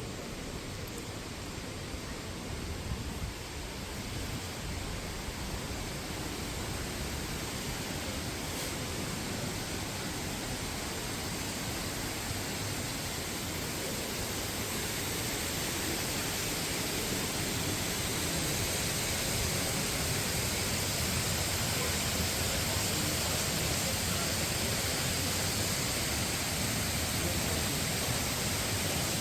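Steady rush of falling water that grows slowly louder.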